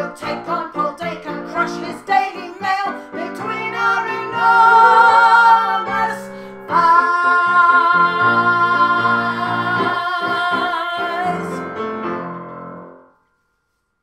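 Women singing with piano accompaniment. The song builds to a long held final note that dies away near the end.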